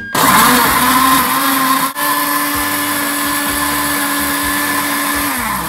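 Electric jug blender pulsing a smoothie of bananas, soya milk and cacao nibs: the motor starts, cuts out briefly about two seconds in, runs again steadily, then winds down with a falling pitch near the end.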